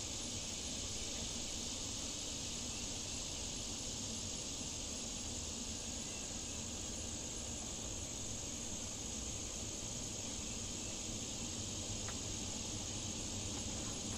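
Steady chorus of insects: a continuous high-pitched drone that does not change, over a low, even rush.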